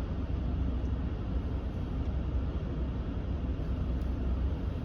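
Steady rush of air from the 2019 Ram 1500's HVAC blower on fan speed 5 with the air conditioning running, over the low hum of the truck's idling engine, heard inside the cab.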